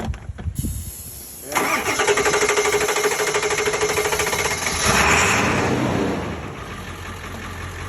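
Ford F-350 engine cranking on its starter for about three seconds with a steady whine, then catching on starting fluid with a brief rev and settling into a steady idle. The truck would not start without the starting fluid.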